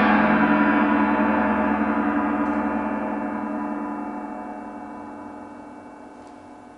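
A large orchestral gong ringing out with several steady overlapping tones, fading slowly and evenly over the whole stretch as it dies away.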